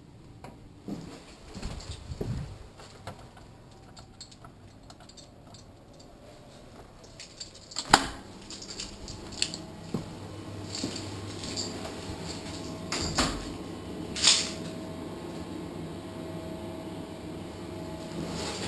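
Knocks and clicks of a door and handling as someone walks indoors: one sharp knock about eight seconds in, then several more clicks and knocks. Under them, from about the same moment, a steady low hum of indoor machinery.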